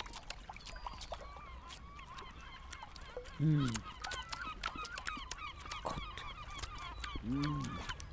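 A person humming a drawn-out, pleased "mmm" while savouring food, twice: about three and a half seconds in and again near the end. Birds chirp and call steadily underneath.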